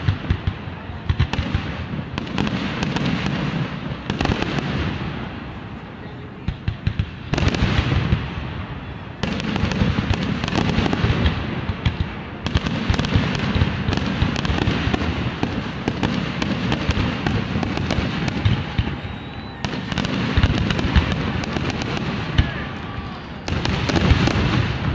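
Fireworks display: aerial shells bursting in quick succession, a dense run of bangs and crackling pops that keeps going, with a short lull about five seconds in.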